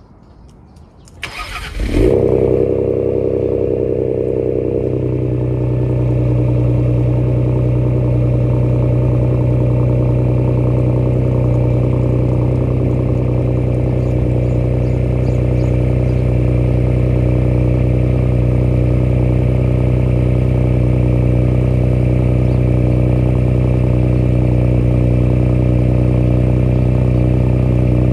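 2020 Ford Explorer ST's 3.0-litre twin-turbo V6 starting through a Thermal R&D 304 stainless steel exhaust. A brief crank about a second in, then the engine catches with a loud flare and after a few seconds settles into a steady cold idle.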